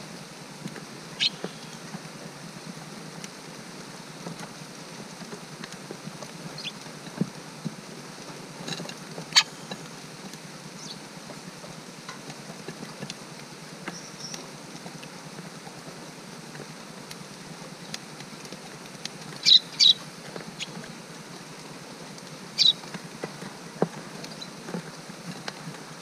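Steady rain pattering, with a few short, sharp high-pitched sounds on top, the loudest two coming close together about three-quarters of the way through.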